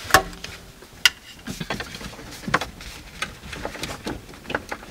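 Cables and plastic connectors being handled and moved around: scattered clicks and taps over a low rustle, with a louder knock right at the start and a sharp click about a second in.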